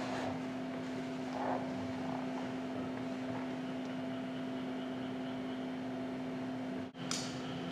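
Steady hum with a constant low tone over an even hiss, dropping out for an instant about seven seconds in and then resuming.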